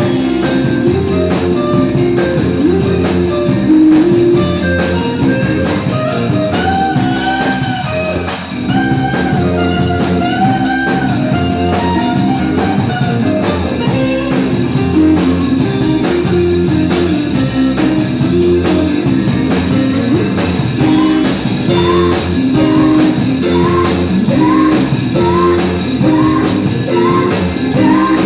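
Rock band playing in rehearsal: guitar and drum kit at a steady loud level, with bending, sliding melodic lines in the middle and a run of short repeated upward slides near the end.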